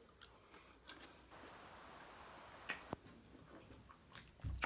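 Quiet chewing of a seasoned cucumber slice close to the microphone, with a few faint sharp clicks.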